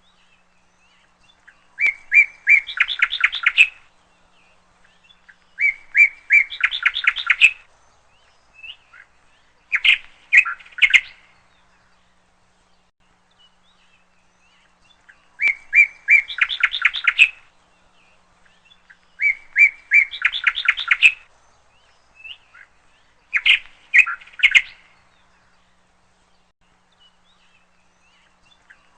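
A songbird singing the same short phrase over and over, six main times with gaps of a few seconds. Each phrase is a few separate notes that run into a quick trill.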